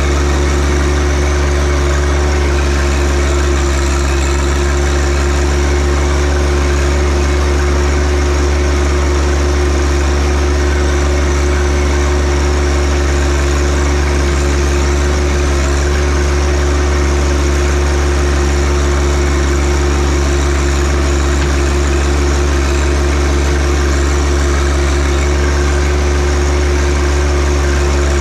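John Deere 1025R compact tractor's three-cylinder diesel engine running at a steady, unchanging speed with a strong low hum.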